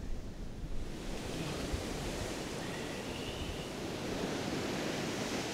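Ocean surf breaking on a sandy beach: a steady hiss of waves washing in, which swells about a second in, with some wind on the microphone.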